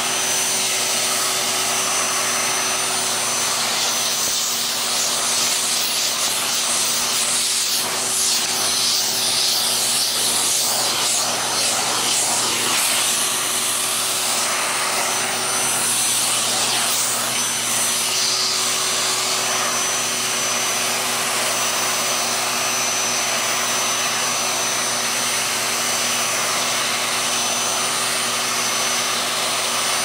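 Vacuum cleaner motor running steadily with a steady whine, its suction drawn through a grooming-brush attachment as the brush is stroked over a cat's fur, adding soft rubbing through the middle stretch.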